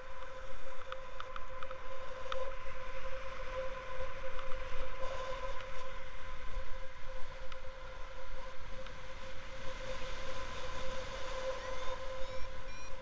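Wind rushing over the camera microphone in flight under a paraglider, with a steady electronic tone throughout. Near the end a tone rises and breaks into quick repeated beeps, typical of a paragliding variometer signalling lift.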